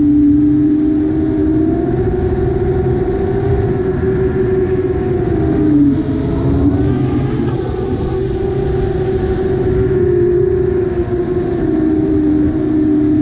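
A 7-inch FPV quadcopter's four EMAX ECO 2807 brushless motors and propellers buzzing in flight. The pitch rises and falls with the throttle and dips briefly about six seconds in, over a low rush of air.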